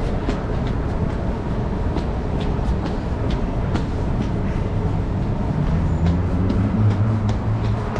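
Footsteps hurrying up stairs, about two to three steps a second, over a steady low rumble, with a low hum coming in near the end.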